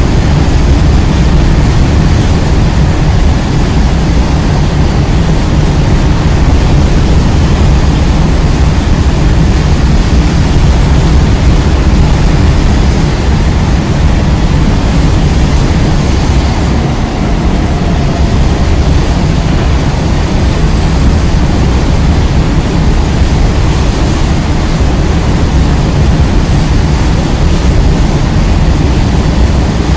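Long freight train of open-top coal wagons rolling past, a loud, steady rumble and rush of noise with no distinct clicks or rhythm.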